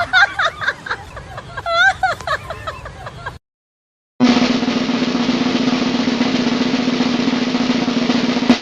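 Snare drum roll, steady for about four seconds and then cut off short. It is preceded by about three seconds of high, quickly swooping pitched sounds and a brief silence.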